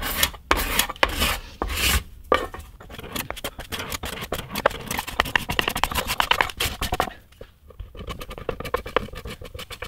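Paint scraper dragged over a guitar body, lifting nitro finish softened by paint stripper off the mahogany. Four strong scraping strokes come in the first two seconds, then lighter, quicker scratches and clicks.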